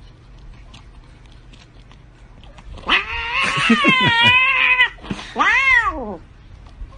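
Grey-and-white cat yowling twice, starting about three seconds in: a long call of about two seconds with a wavering pitch, then a shorter call that rises and falls.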